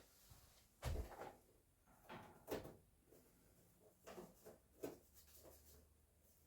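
Near silence broken by a few faint, short knocks and clicks, about one a second or two, from hands handling something at the rack.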